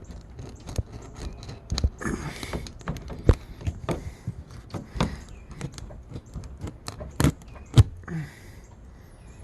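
Irregular clicks, knocks and light metallic clinks of tire plug kit tools being worked in the puncture of a tire, with a short rasping noise about two seconds in.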